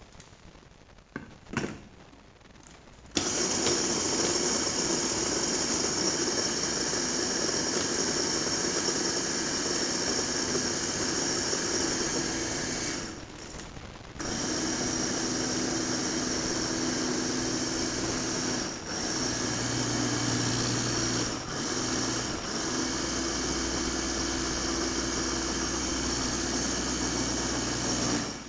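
Electric mini food chopper with a glass bowl, its motor whining steadily as the blades chop the contents. It starts about three seconds in, stops for about a second near the middle, then runs again with two brief dips.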